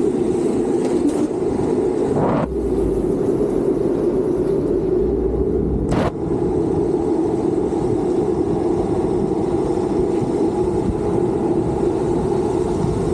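Street luge wheels rolling at speed on asphalt, a steady loud roar, with two short knocks about two and a half seconds and six seconds in.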